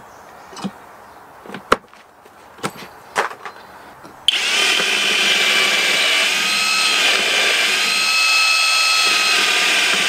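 A few sharp clicks and taps, then about four seconds in a HOTO 12V brushless cordless drill starts suddenly and runs steadily, boring a hole into a piece of wood, with a high whine over its motor noise.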